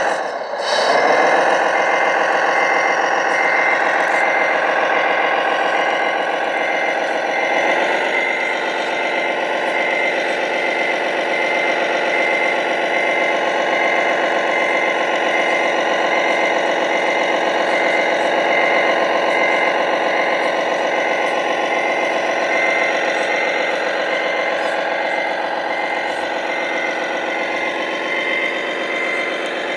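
Globe Liner RC tractor-trailer's sound module playing a diesel truck engine note, running steadily, with a rev-up about a second in and another about eight seconds in. From then on a regular high-pitched beeping sounds over the engine.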